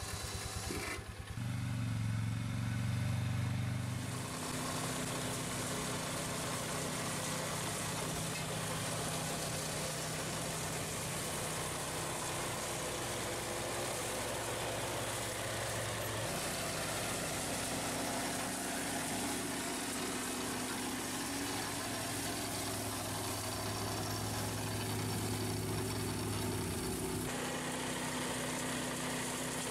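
The small engine of a front-mounted RAMMY ATV mower running steadily along with the ATV while mowing long grass and weeds. The engine note shifts abruptly a few times.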